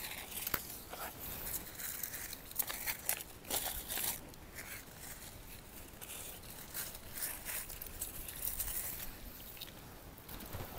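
Irregular rustling, crinkling and light clicks and knocks of gear or bags being handled, busiest in the first half.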